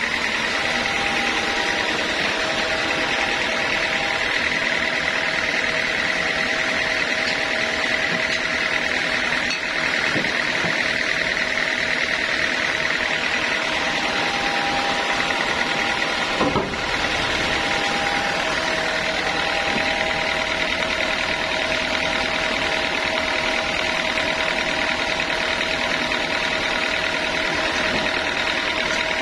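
Sawmill machinery running steadily, a motor-driven saw with a constant whine, with a single sharp knock a little past halfway.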